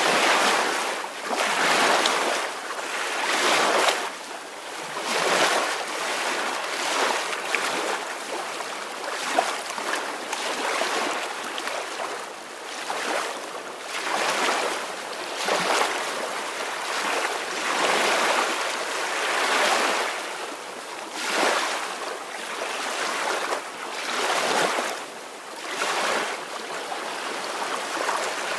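Small ocean waves washing in on a shore, a continuous hiss of surf that swells and ebbs every second or two.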